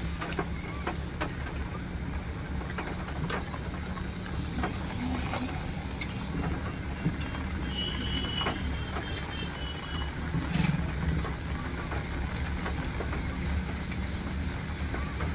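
Vehicle driving slowly on a wet road, heard from inside the cabin: a steady low engine and tyre rumble. Scattered light clicks through it, and a brief high-pitched chirping about eight seconds in.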